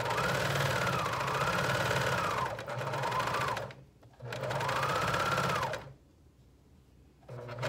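Juki MCS coverstitch machine sewing a two-needle hem in knit fabric, run in bursts: a long run of almost four seconds that slows briefly partway, a short stop, a run of under two seconds, a longer stop, then it starts again near the end. Its pitch rises and falls as the speed changes.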